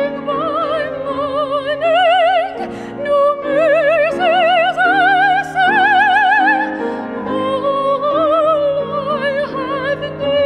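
A woman singing a solo with a wide vibrato on long held notes, accompanied by a grand piano.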